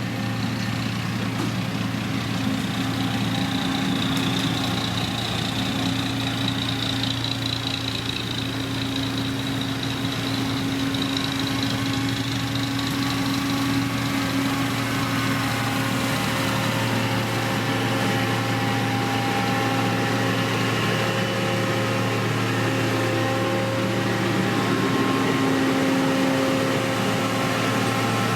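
Diesel engine of a heavy road-building machine running steadily, a constant low hum with a high whine over it through the first half.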